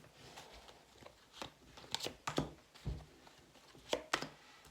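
Tarot cards being shuffled and handled: about half a dozen short, sharp card snaps with light rustling between them.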